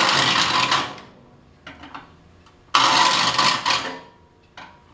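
Saw file rasping across the teeth of a Disston D8 rip saw in two push strokes about two and a half seconds apart, each about a second long. The steel saw plate vibrates under the file and rings on faintly after each stroke.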